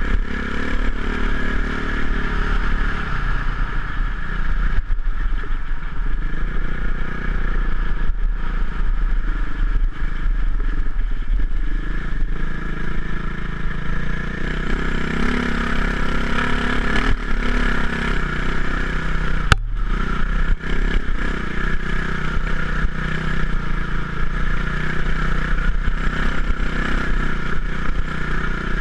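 Off-road motorcycle engine running under throttle along a rough dirt track, with the bike clattering over ruts and wind rumbling on a helmet-mounted camera.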